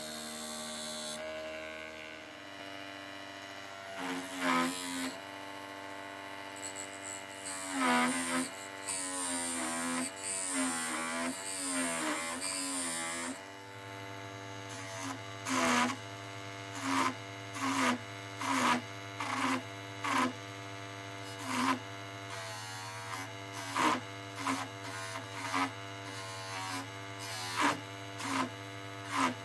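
Small motor of a tiny hobby mini lathe running steadily while a turning tool cuts a turndown into a spinning cherry dowel. The cutting comes as short scraping bursts, a few in the first half and about one a second through the second half.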